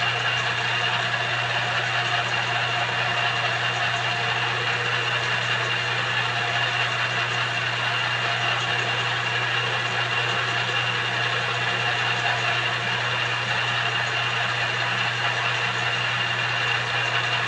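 Small benchtop multi-purpose metal lathe running steadily under power during a test cut, with an even motor hum and a steady high-pitched whine from the drive.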